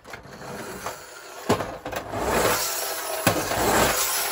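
Friction-gear drive of an Ichiko tin-plate Buick police car whirring as the toy is pushed by hand, with a few sharp clicks along the way.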